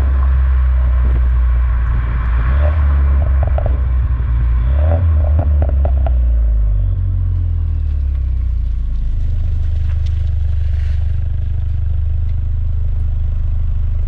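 Exhaust of a 2015 Mustang EcoBoost's 2.3-litre turbocharged four-cylinder through a COBB exhaust, a deep drone with two short runs of quick crackles in the first six seconds, the pops-and-crackles of its Stratified tune. From about seven seconds in it settles into a steady lower drone.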